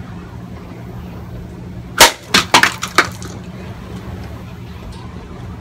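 A unokubi-zukuri katana cutting through a plastic soda bottle on a wooden post: one sharp hit about two seconds in, then four quick clatters within the next second as the cut pieces fall onto the wooden deck.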